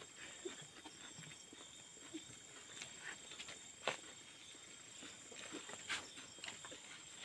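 A man chewing a mouthful of rice, with faint wet mouth sounds and a few sharper clicks, near the middle and toward the end, of his fingers on the steel plate as he mixes rice by hand.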